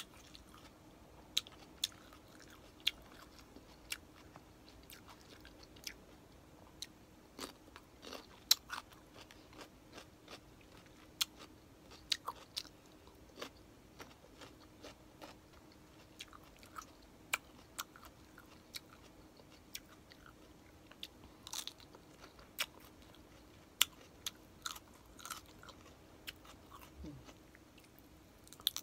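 Close-up chewing and biting of crispy pata (deep-fried pork leg), with irregular sharp crunches from the crisp skin.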